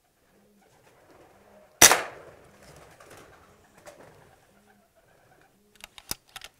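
Feral pigeons cooing softly, about once a second. A single sharp air-rifle report about two seconds in, followed by a rustling flurry. A few sharp clicks near the end.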